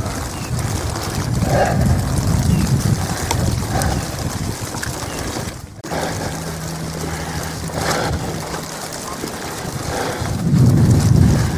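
Wind buffeting the microphone in low gusts that are strongest near the end, over a steady hiss of wet snow falling on the umbrella sheltering the camera. The sound drops out briefly about six seconds in, and a low steady hum joins after that.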